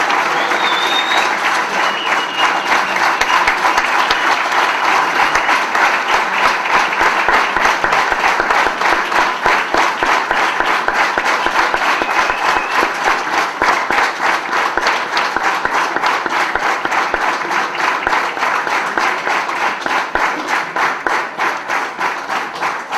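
Large audience applauding: dense, loud clapping that settles into an even rhythmic beat from about halfway through, easing off slightly near the end.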